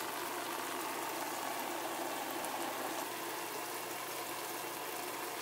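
Chicken, vegetables and white gravy bubbling in a hot cast iron skillet: a steady sizzling hiss.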